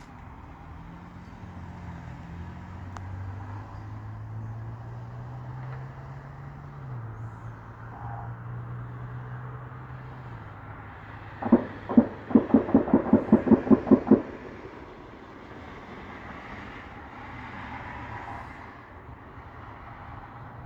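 A rapid string of about a dozen sharp distant bangs, about five a second for some two and a half seconds, over a low steady hum.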